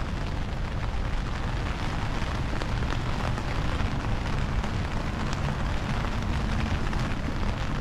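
Steady rain falling on wet pavement, with scattered drop ticks over a constant low rumble.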